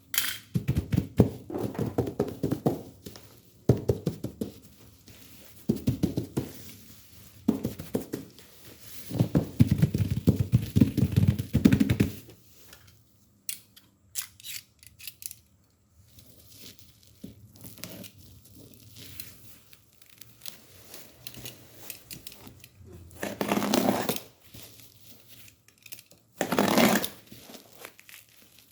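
Packaging being opened by hand: tearing and crinkling of wrapping and cardboard with occasional thunks. The handling is busy for the first dozen seconds, goes quieter, then has two loud tearing or crinkling bursts near the end.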